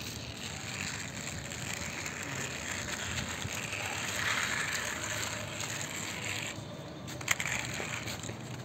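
Small plastic toy cars pushed along rough concrete, their wheels rolling with a steady rattling scrape that eases off after about six and a half seconds. A single sharp tap comes about seven seconds in.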